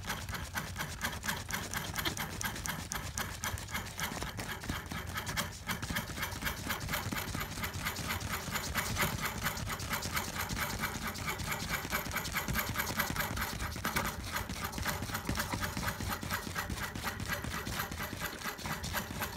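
A machine running with a rapid, even clatter of clicks that holds steady throughout.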